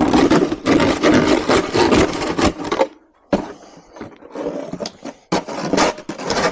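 Snow shovel scraping across hard, frozen snow in three long, rasping strokes.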